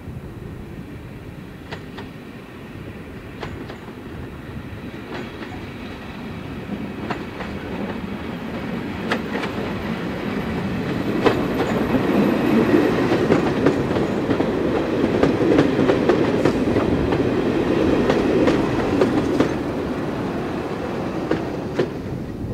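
Three-car Class 117 diesel multiple unit passing, its underfloor diesel engines running with the wheels clicking over the rails. It grows louder as it approaches, is loudest from about halfway in as it draws level and passes, then eases off as it runs away.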